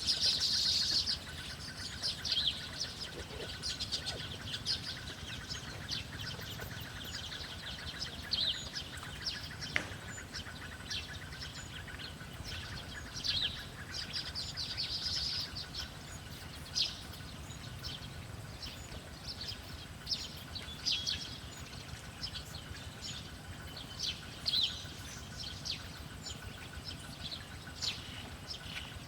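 Small birds chirping outdoors: short, high calls come repeatedly at irregular intervals, with a few denser bursts of twittering. A faint steady high tone runs underneath.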